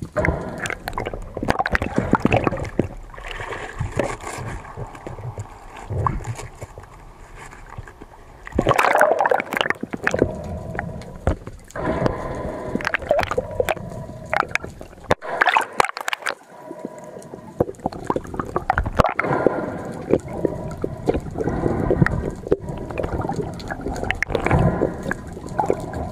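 Seawater sloshing, gurgling and splashing around a spearfisher during a dive, uneven in loudness with sharp splashes among the gurgles.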